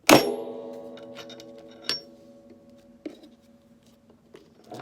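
A circle graphic punch for button artwork pressed down with one loud clunk, followed by metallic ringing that dies away over about three seconds as the button machine and tools on the table vibrate. A lighter knock comes about two seconds in, with small taps later.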